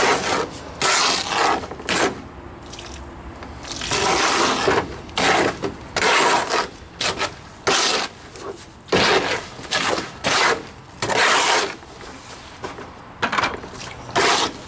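Trowel scraping and stirring wet Rapid Set mortar mix in a plastic mortar tub: repeated uneven scraping strokes with a short pause about two seconds in.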